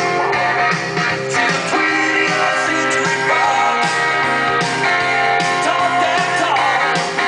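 Rock song with guitar and singing, played from a vinyl record on a turntable.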